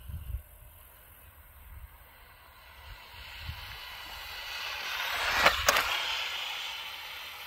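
ECX Torment 1/18-scale RC short course truck with a brushed 380 motor on a 2S LiPo passing at full throttle: a hiss of motor and tyres on asphalt that swells as it approaches, peaks with two sharp ticks about five and a half seconds in, then fades as it drives away.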